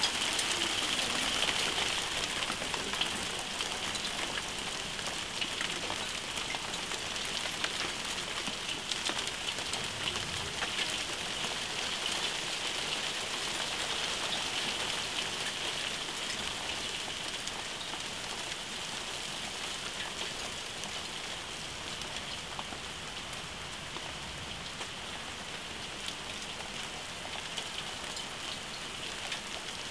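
Hailstorm: heavy rain and hailstones pelting a wooden deck and trees, a dense steady hiss full of sharp little ticks, easing slightly as it goes on.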